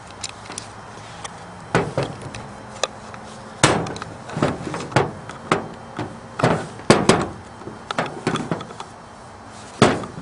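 Irregular knocks and clicks of a blue plastic electrical box and its mounting nails being handled and set down on a hard tabletop, a dozen or more sharp taps, the loudest about four seconds in, around seven seconds and near the end.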